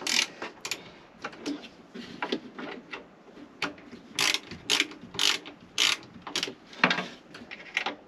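Hand ratchet clicking in short strokes as it tightens the bolts on a Truma Combi boiler's combustion air fan unit. The strokes are sharpest and most regular in the second half, about two a second.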